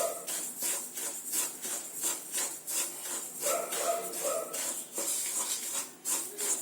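A spatula scraping and stirring little millet (samai) as it dry-roasts in a kadai, in quick, even strokes of about three a second.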